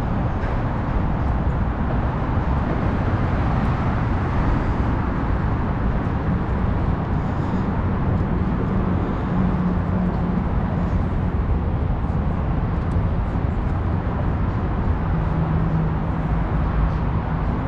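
Steady rumble of freeway traffic passing on the elevated ramps overhead. A low hum stands out from it twice, around the middle and near the end.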